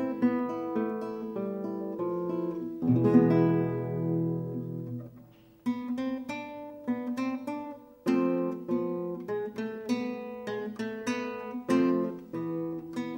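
Solo classical guitar played fingerstyle: a line of single plucked notes over bass notes. About three seconds in, a low chord rings out and fades almost to nothing before the picking resumes.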